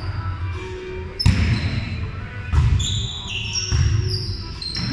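Volleyball rally in a gymnasium: three sharp ball hits about a second apart, with sneakers squeaking on the hardwood court between them, all echoing in the hall.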